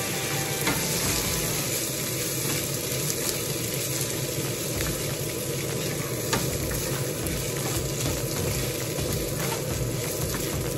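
Raw white rice sizzling in hot oil in a pan as it is stirred with a wooden spoon, with a few faint scraping clicks. The rice is being fried before liquid goes in, the first step of Mexican red rice.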